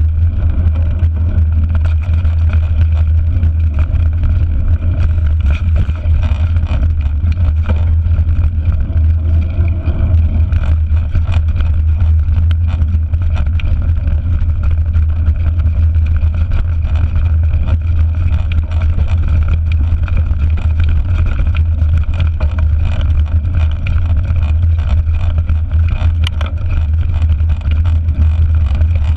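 Wind rumbling steadily on a handlebar-mounted GoPro's microphone as a mountain bike rides a bumpy dirt trail, with scattered knocks and rattles from the bike over the ground.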